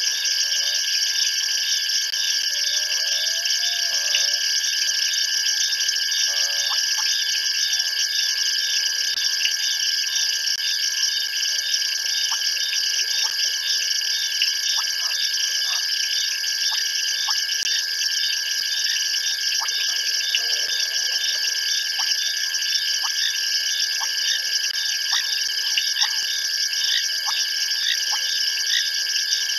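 Dense night chorus of insects and frogs: several steady high trills and buzzes layered over one another. Through the second half a short, lower call repeats about once a second.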